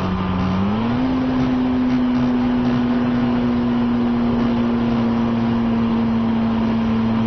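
RC model airplane's motor and propeller heard from the onboard camera in flight, a steady drone that steps up in pitch about a second in as the throttle is opened, then holds level, over a hiss of rushing air.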